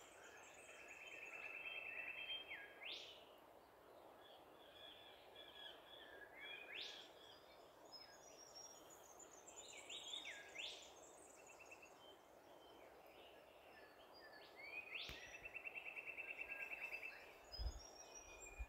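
Faint bird calls over a quiet hiss: sharp rising whistles several times, two rapid trills (one near the start, one about three-quarters through) and scattered high chirps.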